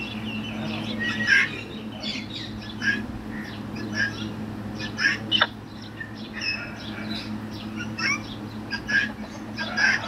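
Blue-and-gold macaw giving short squawks and chattering calls, about one a second, the loudest about a second in, with one quick falling whistle near the middle. A steady low hum runs underneath.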